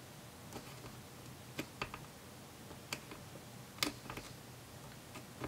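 Small, irregular clicks and taps of a plastic pry tool pressing a laptop's battery connector and its metal retaining piece into place, the sharpest click about four seconds in.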